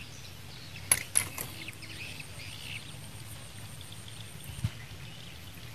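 Open-air ambience: a steady low rumble, two sharp clicks about a second in, and faint high chirps.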